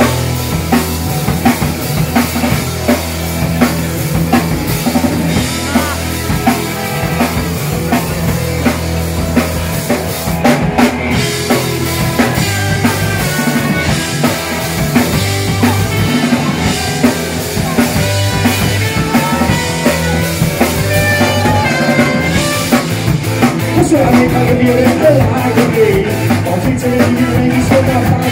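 Live rock band playing a song, with a drum kit driving it, electric bass and guitar, and horns.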